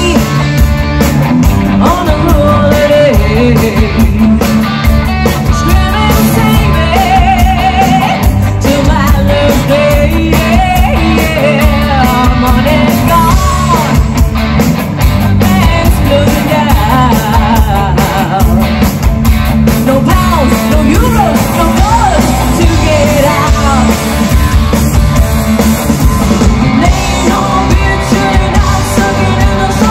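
Loud live rock band amplified through a PA: a woman singing lead over electric guitars and a drum kit, with a steady beat.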